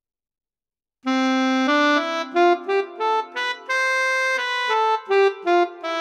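Saxophone playing a solo melody of single notes, starting about a second in: a held low note, then a quick run of shorter notes moving up and down.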